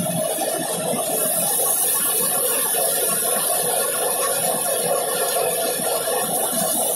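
Tractor-PTO-driven bajra thresher running steadily, its drive shaft, belts and threshing drum turning, with a steady hum and a high hiss throughout.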